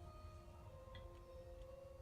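Faint background music, a few long-held notes over a low hum, barely above near silence.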